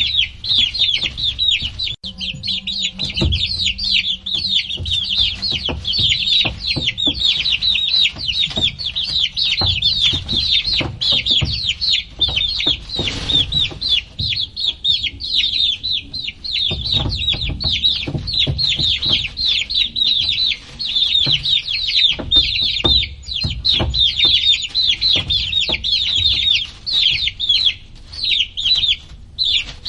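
A flock of baby chicks peeping continuously: many short, high, downward-sliding cheeps overlapping without pause, with scattered low knocks and bumps beneath.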